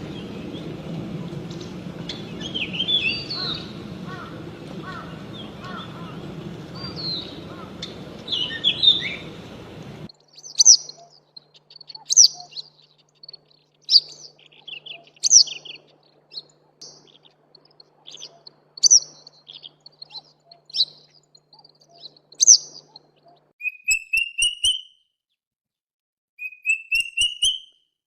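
Songbirds singing in three abruptly spliced recordings. First come chirps over a steady background hiss, then sharp repeated chirps about every second and a half, then short rising trills repeated several times near the end.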